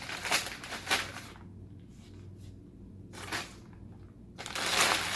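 Food packaging being handled as a sandwich is put away: a few short knocks and crinkles, then a longer rustle of paper wrapping near the end.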